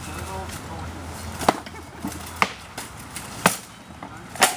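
Four sharp wooden knocks about a second apart: sparring weapons striking shields and armour in armoured mock combat.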